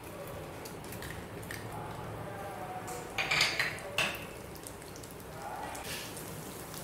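Tadka frying: chana dal, urad dal and black mustard seeds sizzling softly in hot oil in an aluminium pan, with two brief louder bursts about three and four seconds in.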